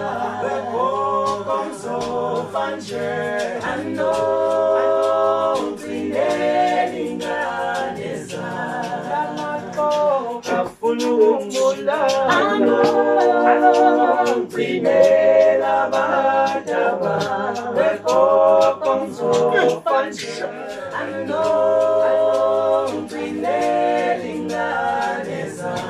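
A six-man a cappella vocal group singing in close harmony, sustained chords that change every second or two over a low bass line.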